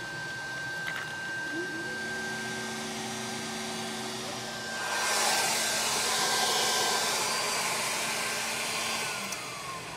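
Steady airy whir of the WeCreat Vision Pro laser engraver's fans, with a low hum joining about two seconds in. The hiss grows louder about halfway through, then eases, and the hum stops near the end.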